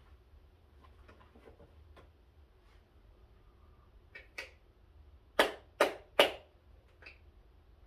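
Plastic bottle of tanning lotion being squeezed: three short, loud squirts a little under half a second apart, after a few soft handling and rubbing noises.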